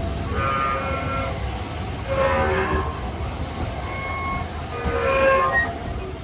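Train brakes squealing in about four short, high-pitched bouts over the rumble of the moving train, heard from inside a carriage; very squeaky.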